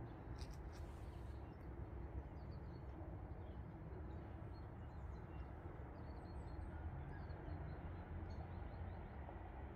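Quiet outdoor ambience: faint, scattered high bird chirps over a steady low rumble.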